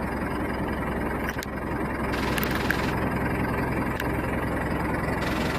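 Fishing boat's inboard engine running steadily, a constant low drone.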